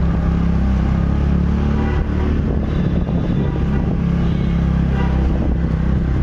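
Engine of a moving motorbike or scooter running steadily, heard from the rider's seat, with wind and road noise over the microphone.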